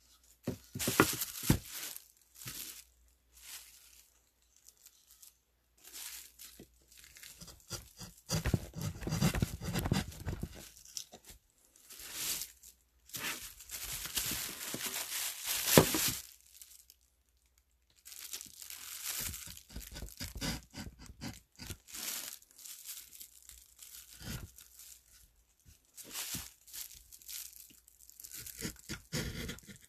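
Irregular bursts of crinkling and rustling from a plastic sheet being handled against the phone, mixed with the scraping of a woodcut carving chisel gouging into a wooden block.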